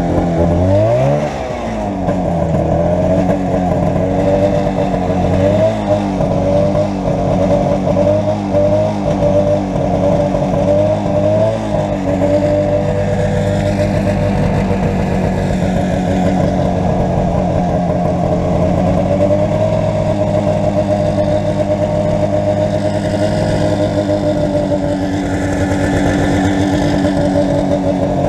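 Arctic Cat Jag 440 Deluxe snowmobile's two-stroke engine running under way. The revs drop sharply about a second in, then rise and waver up and down until about twelve seconds in, after which they hold steady.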